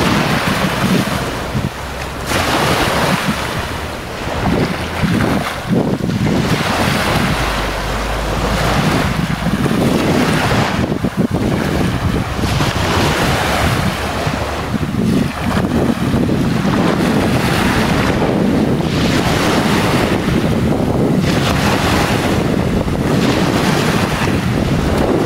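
Small waves breaking and washing up a sandy shore, the rush of surf swelling and easing every second or two, with wind buffeting the microphone as a low rumble.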